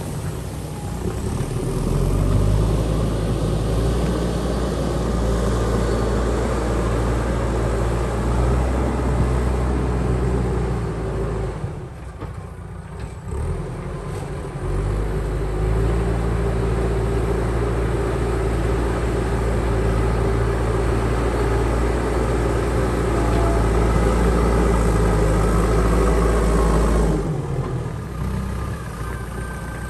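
JCB backhoe loader's diesel engine running steadily, easing off briefly about twelve seconds in and again near the end.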